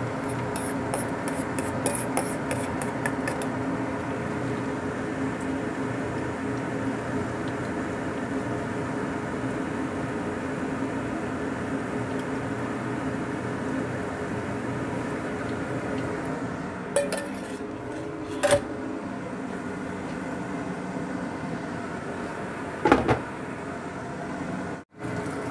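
Beaten egg with chopped basil frying in hot oil in a nonstick wok: a steady sizzle, crackling hard in the first few seconds. A couple of light clinks a little past the middle and a sharp knock near the end as a glass lid is set on the pan.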